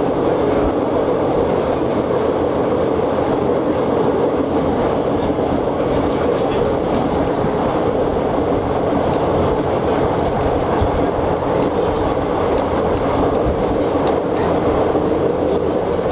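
Steady running noise heard aboard a CPH 'Tin Hare' diesel railmotor travelling at speed: the drone of the engine and the rumble of the wheels on the rails, with scattered faint clicks.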